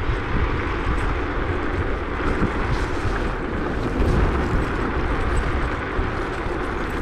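Wind and road noise from riding a Zero 10X electric scooter: a steady rushing with a heavy, buffeting low rumble and no distinct tones.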